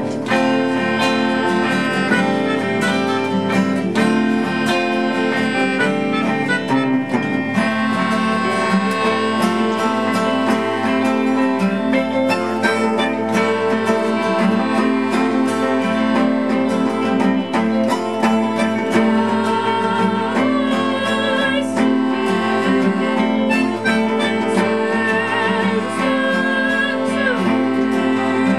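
A live band playing an instrumental passage: strummed acoustic guitar under sustained melody lines that waver in pitch in the last third.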